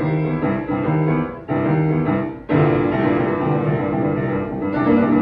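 Grand piano playing a boogie piece with a swinging feel: a repeating bass pattern under right-hand chords and notes, with two brief breaks between phrases about one and a half and two and a half seconds in.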